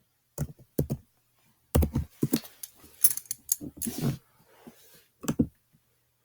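Typing on a computer keyboard: irregular clusters of sharp keystroke clicks, densest in the middle.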